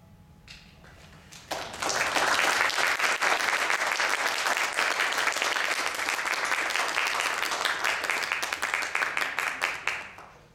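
Audience applauding: the clapping starts suddenly about a second and a half in, stays dense and even, and dies away near the end.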